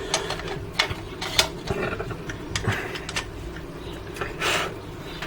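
Irregular small clicks and scrapes of plastic parts of a wall light switch being handled and pressed into place, with a brief rubbing scrape near the end.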